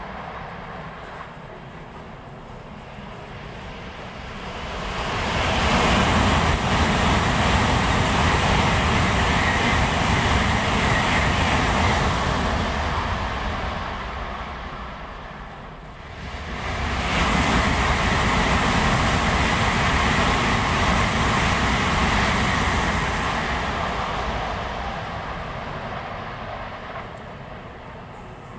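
N700-series Shinkansen train running past the station platform at speed: a loud, dense rush of wind and wheel-on-rail noise that swells up, eases off, surges again about two-thirds of the way through, then fades away.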